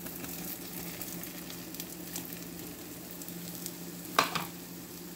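Toasted bread frying with a steady sizzle in a stainless steel frying pan, over a low steady hum, with one short sharp knock about four seconds in.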